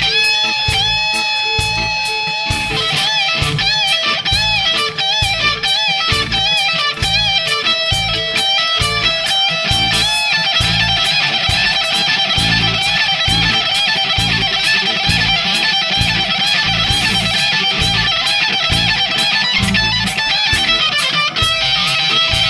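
Rock band playing an instrumental break: a lead electric guitar with bent, wavering notes over a steady drum beat and bass.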